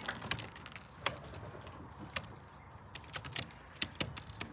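Irregular sharp clicks and taps, several a second, of racing pigeons pecking and stepping on a loft roof.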